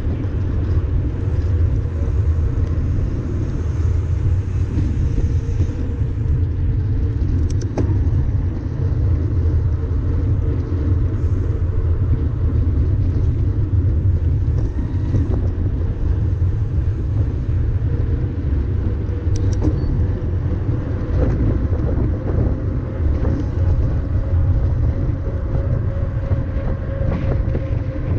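Steady low rumble of wind buffeting a bike-mounted camera and mountain bike tyres rolling on asphalt, with a faint hum running under it and a few faint clicks.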